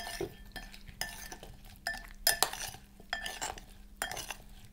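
A spoon or fork stirring potato salad in a bowl: irregular clinks and scrapes against the bowl, a few each second, some leaving a short ring.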